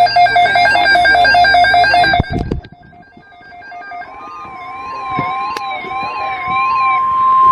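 Electronic emergency alert tones: a loud warbling, siren-like alert cuts off about two seconds in, and after a short gap a steady single-pitch NOAA Weather Radio warning alarm tone starts, with a fainter warbling tone swelling under it.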